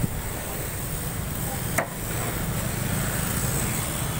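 Steady low rumble of street traffic with motorbikes passing close by, and a single sharp click about two seconds in.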